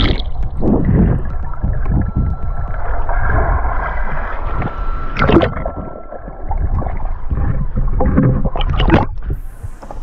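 Water sloshing and gurgling around a swimmer, heard underwater. There are crackling bubble bursts about five seconds in and again near the end, as the camera nears the surface.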